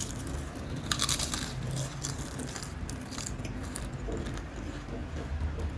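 Potato crisps being crunched and chewed in the mouth, with a burst of crisp crackling about a second in and a few lighter crunches around three seconds.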